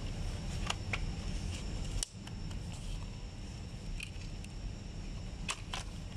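Short plastic clicks and snaps, about six of them, as the round air-vent barrels are worked loose from a car dashboard vent housing, over a steady low background hum.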